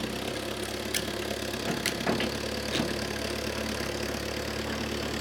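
Vehicle engine idling steadily, with a few sharp clicks or knocks over it in the first three seconds.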